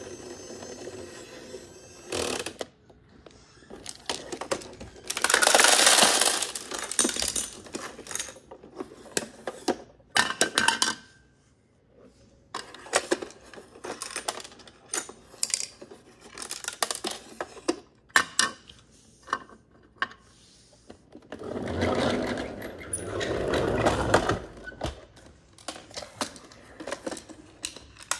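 Plastic toy wheelie bins and a toy garbage truck being handled on a wooden floor: a run of irregular clicks, taps and clatters, with two longer, louder noisy stretches about five seconds in and again about twenty-two seconds in.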